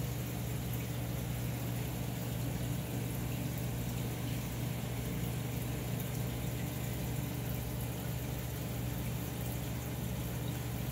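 Aquarium filter pump running: a steady low hum with an even water hiss, unchanging throughout.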